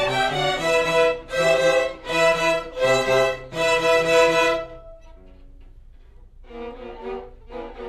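A student string orchestra of violins, violas and cellos playing loud, accented chords in a pulsing rhythm, then dropping suddenly to a soft passage about five seconds in.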